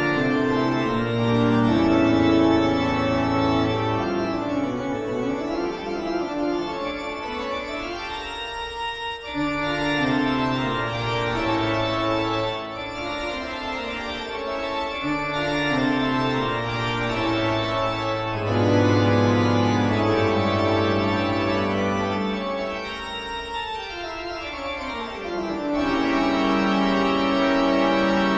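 Eerie organ music: sustained chords over held deep bass notes, with runs of notes sweeping up and down, one long descending run near the end.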